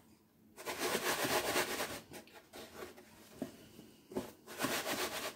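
Chicken pieces being tossed and rubbed in flour inside a plastic container, a rustling, scraping sound in two bouts: one starting about half a second in, the other about four seconds in, with light knocks between.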